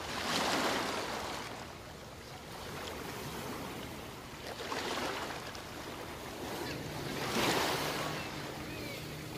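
Small sea waves breaking and washing up onto a sandy beach: three swells of surf, about half a second, five and seven and a half seconds in, over a steady wash of water.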